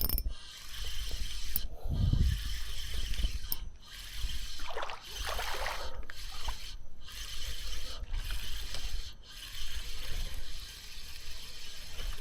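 Fishing reel being wound in with a hooked tailor on the line: a steady mechanical winding and ratcheting, with short breaks about once a second.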